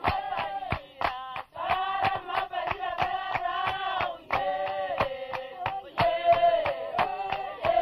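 Background music: several voices singing together in held, sliding notes over a steady beat of sharp percussive strokes.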